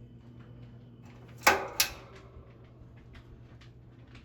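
Low steady electric hum of a 1950s GE box fan's motor with faint ticking, the fan running after a long time unused. Two sharp clicks come about a second and a half in.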